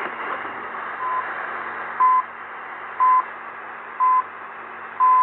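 Radio station's hourly time-signal pips received on a Meier M-9321 pocket shortwave radio, over steady reception hiss: four short beeps a second apart, the first fainter, then a longer beep marking the top of the hour.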